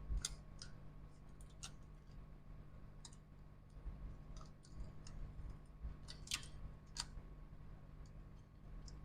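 Scattered light clicks and taps of small tools and parts being handled on a repair bench, over a steady low electrical hum.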